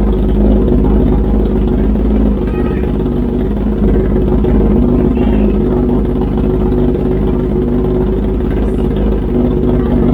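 2020 Kawasaki ZX-10R's inline-four engine running steadily through an SC Project full titanium exhaust, with no revs blipped.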